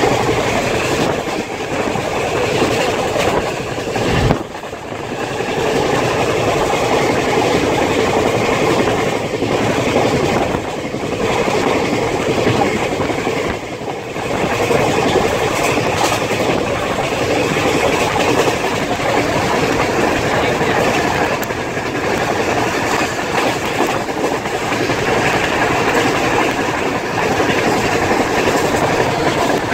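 Passenger train running at speed, heard from on board: a steady rumble of wheels on the track with rushing noise. There is a brief thump about four seconds in.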